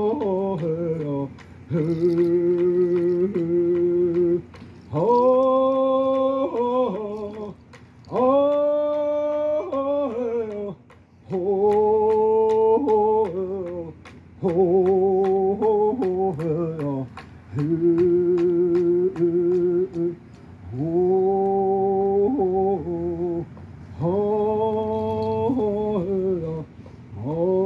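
A First Nations song: a singer's voice in repeated phrases of about two seconds each, each falling in pitch at its end, with short breaks between, over a steady hand-drum beat.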